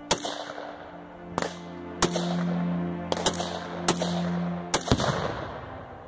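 A series of sharp gunshots, about eight in all, fired at a Tannerite charge set in a furnace. Near the end a heavier, longer boom follows as the Tannerite detonates. Background music plays underneath.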